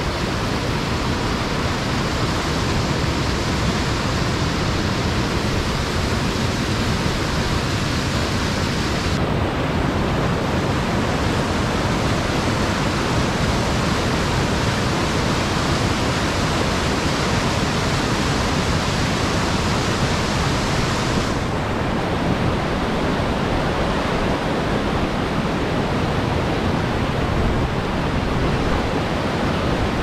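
Steady rushing of a white-water mountain stream cascading over rocks, its tone shifting abruptly about nine seconds in and again about twenty-one seconds in.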